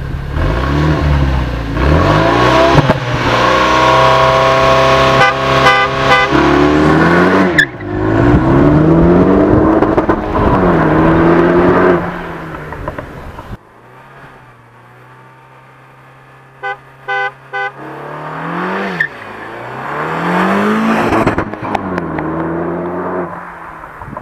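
Renault Megane RS 275 Trophy's turbocharged four-cylinder, breathing through an Akrapovic exhaust in its loud RS mode, accelerating hard from a standing start. The revs climb and drop back at each upshift several times over. After a sudden drop in level come three short sharp bursts, then another hard run up through the gears with rising and falling revs.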